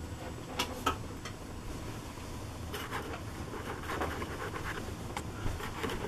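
Handling and movement noise, with two sharp clicks just under a second in, then scattered rustling, footsteps and light knocks.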